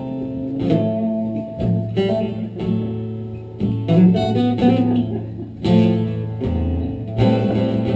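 Guitar playing a slow blues instrumental passage: plucked notes and short phrases over a held low bass note.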